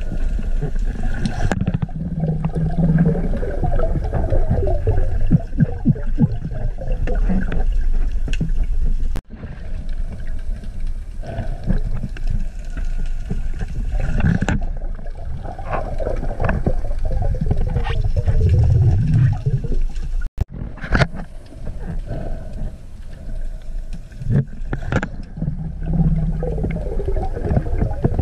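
Muffled underwater noise picked up through a camera housing while diving: low rumbling and gurgling water with scattered crackles. It drops out briefly twice, about nine and about twenty seconds in.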